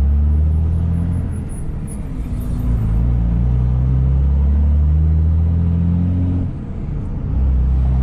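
Car engine and road noise heard from inside the moving vehicle: a low, steady rumble whose pitch shifts a few times, dipping briefly about six and a half seconds in before picking back up.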